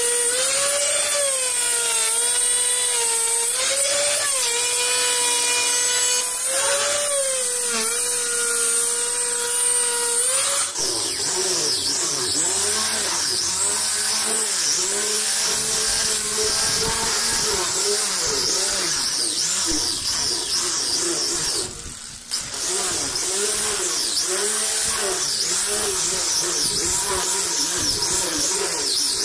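Electric wood router running at a high whine, its pitch dipping each time the bit bites into the edge of a wooden tabletop. About a third of the way through, this gives way to the rougher, hissier sound of an angle grinder with a sanding disc sanding the tabletop's face, with a brief break about two-thirds through.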